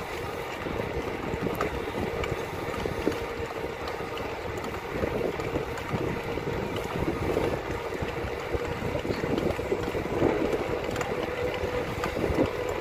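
Wind buffeting the microphone of a camera on a moving bike: a steady, fluctuating rush with a faint steady hum under it.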